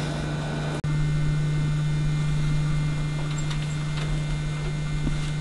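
Steady low electrical mains hum, broken by an instant's drop-out about a second in.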